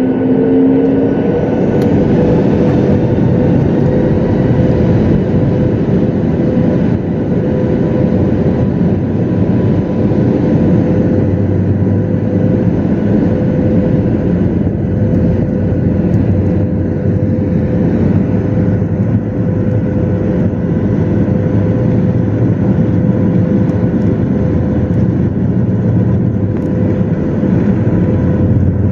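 Boeing 737 jet airliner's engines spooling up to takeoff power, a whine climbing in pitch within the first second, then a loud, steady roar with a constant whine through the takeoff run.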